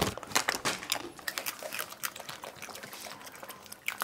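Wet eating sounds of people biting, sucking and licking chocolate-coated ice cream bars: irregular small clicks, smacks and slurps.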